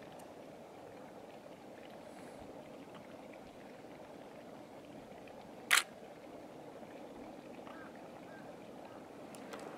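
Steady, low rushing of steam vents and hot-spring water in a volcanic valley, with a single sharp click a little past the middle.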